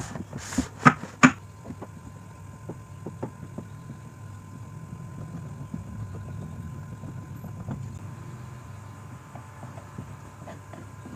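Wooden blocks knocked together and set down on a table a few times in the first second and a half, then quiet scraping and faint ticks of a wooden stick spreading white glue over the wood, over a low background rumble.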